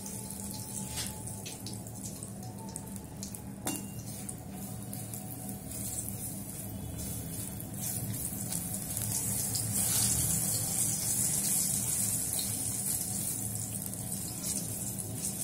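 A dried Kashmiri red chilli sizzling in a little hot oil in a black metal kadai, with a steel slotted ladle stirring and scraping now and then. The sizzle grows louder about halfway through.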